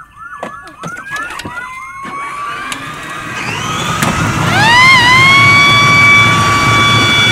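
Kid Trax ride-on toy fire truck's electronic siren: a fast repeating yelp for the first two seconds, then a wail that rises and settles into a steady held tone about five seconds in. A low rumble underneath grows louder as the truck drives.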